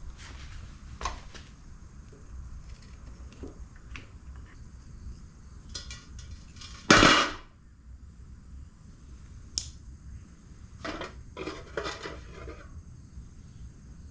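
Hard objects knocking and clinking irregularly, with one loud sudden crash about halfway through, a sharp click a little later, and a quick cluster of knocks near the end.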